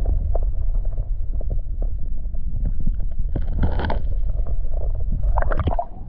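Creek water sloshing and splashing close to the microphone over a heavy low rumble, with scattered small knocks and two louder splashes, one a few seconds in and one near the end.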